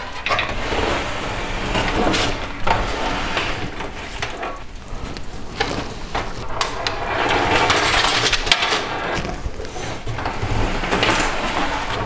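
Bundle of thin front-panel cables being pulled and threaded through the cutouts of a steel PC case, rustling and scraping against the metal, with occasional sharp clicks and knocks.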